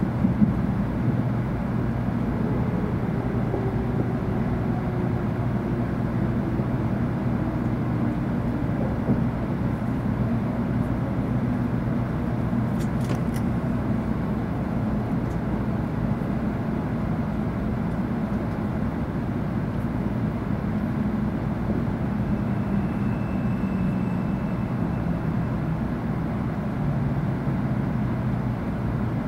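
Cabin noise inside a 700 Series Shinkansen car slowing into a station: a steady low rumble of the running train, with a faint whine that falls slowly in pitch over the first ten seconds or so as the train decelerates.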